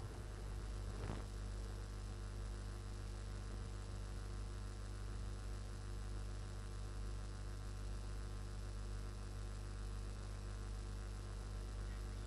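Steady low mains hum with a faint hiss.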